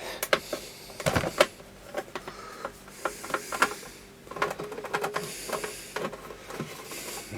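Taking apart a soldering station's case: scattered small clicks and light knocks of screws and the metal housing being handled.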